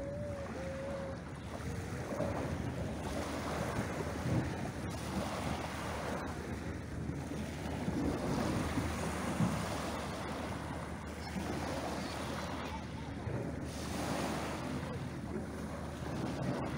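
Small waves breaking and washing up a shingle beach, the surf swelling every few seconds, with a low rumble of wind on the microphone.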